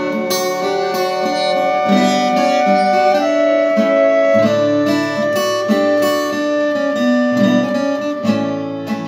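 Instrumental passage of a candombe-style song played acoustically: a strummed acoustic guitar under violin and flute holding long melody notes.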